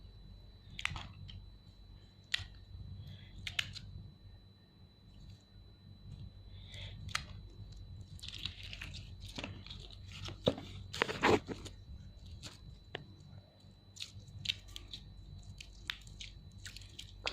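Slime being squished and pressed by hand: irregular sticky clicks, pops and crackles, busiest and loudest from about 8 to 11 seconds in.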